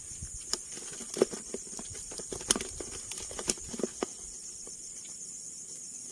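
Irregular light knocks and clicks, loosest in the first four seconds, over a steady high drone of insects.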